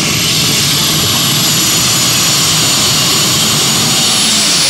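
Modified pulling tractor at full throttle dragging the weight sled, its engines giving a loud, steady roar.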